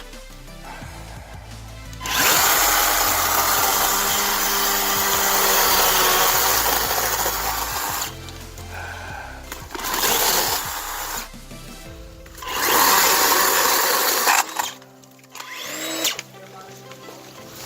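Electric chainsaw cutting through thick bush stems in bursts: one long cut of about six seconds, then two shorter ones, with quieter pauses between.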